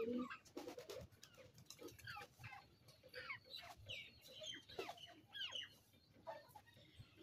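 Faint, scattered chirps and short calls of small birds, with the end of a spotted dove's low coo right at the start.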